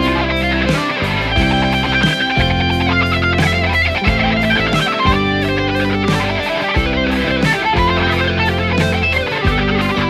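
Electric guitar played along with a rock backing track of drums and bass, with a steady beat and held bass notes.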